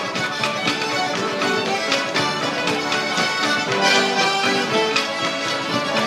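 A traditional Québécois reel played live on fiddle and dulcimer, with sharp taps keeping the beat.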